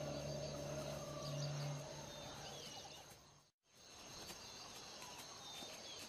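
Faint bush ambience: a steady high insect drone with a few scattered bird chirps. Under it a low held music tone fades out, and the sound drops out completely for a moment about three and a half seconds in before the ambience returns.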